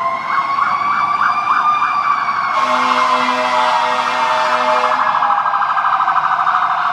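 Fire truck sirens: a slow rising and falling wail overlapping a fast yelp. A steady low horn blast sounds for about two seconds, a few seconds in.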